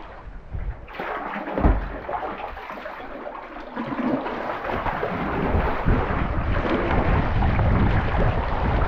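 Rushing whitewater, with loud low rumbling and thumping on the microphone; a heavy thump about a second and a half in, and the roar grows louder midway.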